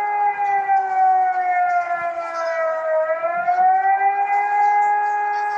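Civil defence siren sounding a loud, steady note that dips lower in pitch around the middle and then rises back to the same note.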